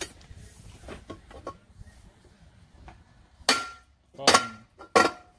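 Three sharp metal-on-metal strikes, a little under a second apart, each ringing briefly: steel tools working on the tractor's steel rear-wheel rim hardware.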